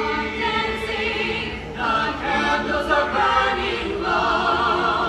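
A small choir of carolers, men's and women's voices together, singing a holiday song in long held phrases, with short breaks between phrases about two and four seconds in.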